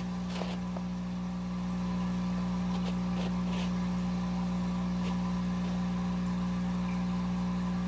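Steady low electrical hum of fish-room equipment such as air pumps, with a few faint ticks.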